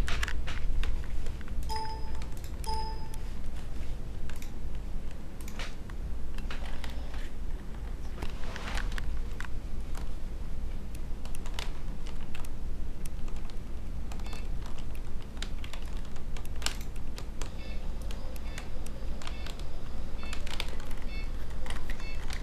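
Computer keyboard keys clicking irregularly as a kitten's paws stand and shift on them. There are two short electronic beeps from the computer about two and three seconds in.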